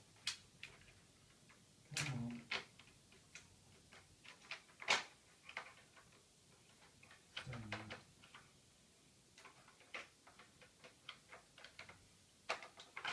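Scattered faint clicks and taps of hard plastic parts as a Transformers Masterpiece Optimus Prime trailer is folded up by hand.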